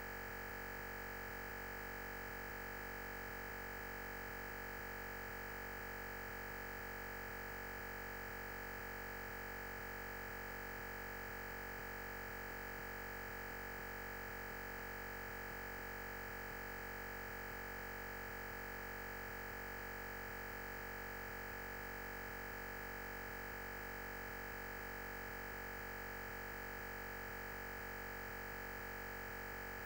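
Steady electronic noise from the recording chain: a constant hiss with a held high tone and hum, unchanging throughout and with no speech. The lecture's sound has dropped out and left only this noise.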